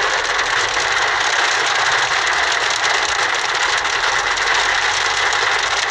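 A heavy downpour drumming steadily on a car as a dense, even hiss, with the car's engine running low underneath.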